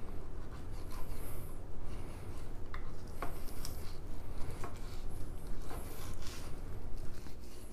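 Fillet knife slicing and scraping through a mullet on a plastic cutting board: a series of short strokes about once a second, with a few light clicks.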